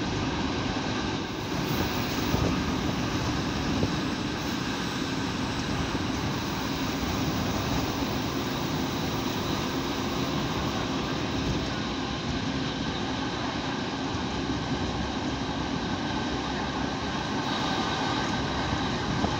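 Fiat ALn668 diesel railcar running at speed, its diesel engines working under load over steady wheel and rail noise, heard from on board.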